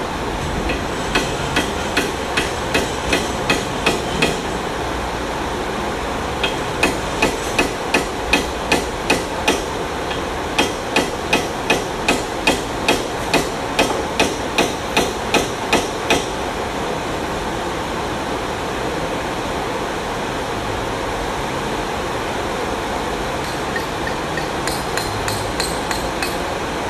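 Hammer strikes, about two and a half a second, in three runs with short pauses between them, over a steady background hiss.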